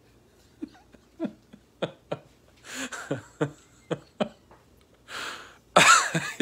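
A man chuckling and breathing: short, separate laugh sounds and breathy exhales, the loudest near the end.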